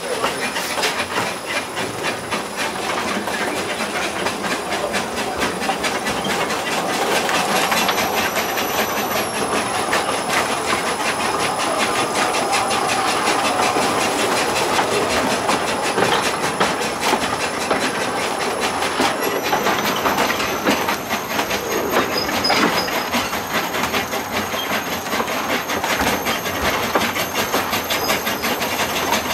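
Small narrow-gauge saddle-tank steam locomotive running along the line, heard from right behind its cab: a fast, steady rhythm of exhaust beats and wheel clicks with steam hissing.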